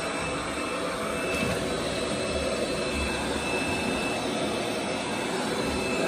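Bagotte BG800MAX robot vacuum cleaner running on its highest suction setting: a steady whirring rush of the suction fan and brushes with a faint high whine, a little loud.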